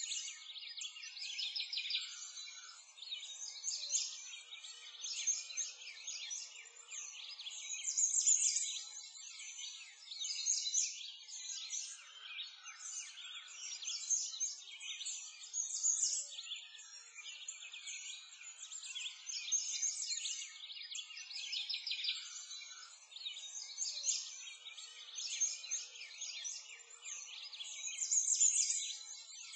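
A continuous chorus of small songbirds chirping and trilling, many short high calls overlapping with no break.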